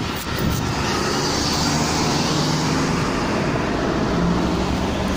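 Steady road traffic: cars driving past with engine hum and tyre noise.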